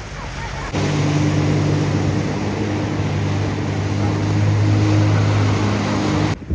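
Speedboat engine running steadily at speed, a constant drone over the rush of water and wind. It starts abruptly about a second in and cuts off just before the end.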